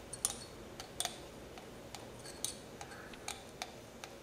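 Hex driver and 7 mm wrench clicking against the screw and nut of an RC buggy's steering assembly as the screw is loosened: about a dozen light, irregular metal clicks.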